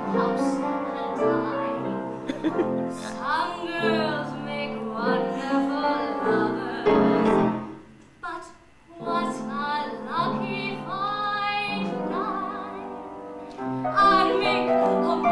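A woman singing a show tune with vibrato, accompanied by piano, with a brief break about eight seconds in.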